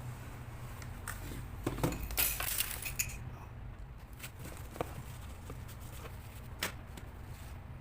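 Light clicks, taps and small clinks of hard plastic and metal parts being handled, with a short scraping, rustling stretch about two seconds in, over a steady low hum.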